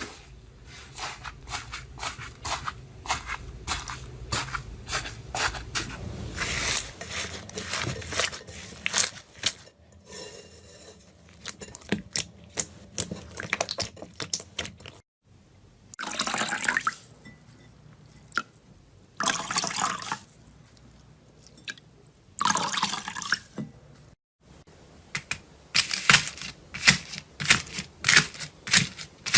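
Slime being squeezed and poked by hand: a stream of sharp wet clicks and pops, with three longer squelches in the middle and a quick run of clicks near the end.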